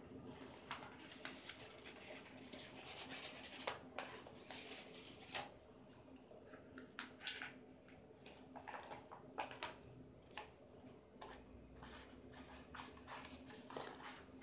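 Faint rustling and crackling of a sheet of white paper being curled and rolled into a cone by hand, with many short sharp crinkles as it is bent and pressed.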